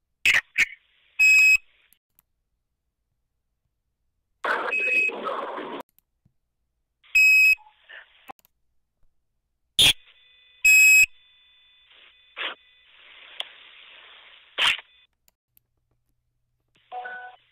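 Mobile phone line audio: irregular short electronic beeps and bleeps, a garbled, muffled burst of noise about five seconds in, and a held double tone with hiss later on, each broken off by dead silence. These are the strange noises that come over calls from a German mobile number into a US voicemail, which the uploader takes for a sign of the line being tapped.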